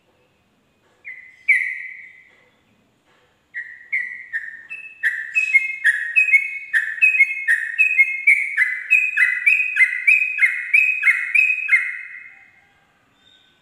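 Yellow-vented bulbul singing: two short falling whistles, then a long rapid run of falling whistled notes, about three a second, in its rolling 'ropel' song, fading out near the end.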